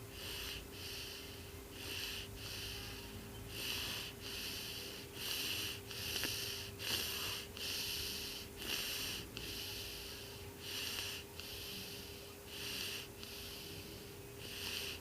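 A cat's breathing close to the microphone: short breathy hisses in pairs, in and out, about every second and a half.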